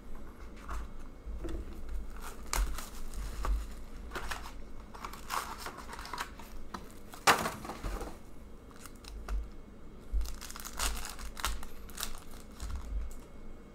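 Plastic wrap and foil hockey-card packs crinkling and tearing as a box of cards is opened by hand, in irregular crackles with one sharp snap about seven seconds in.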